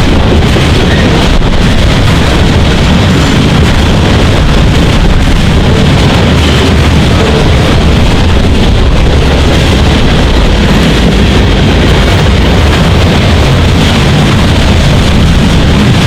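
Freight train rolling past close by: a loud, steady low rumble that does not let up, with wind buffeting the microphone.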